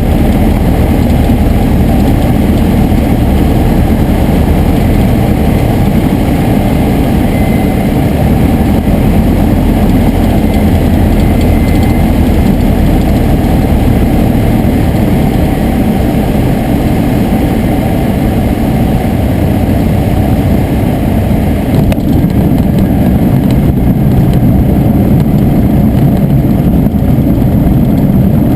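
Piper Tri-Pacer's engine and propeller running steadily: a loud, even drone.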